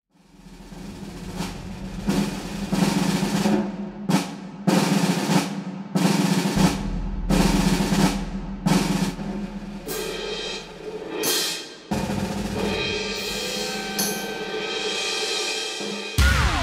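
Intro music: a run of heavy drum strikes, each ringing out, about one a second, giving way in the second half to sustained held tones, with a final loud hit near the end.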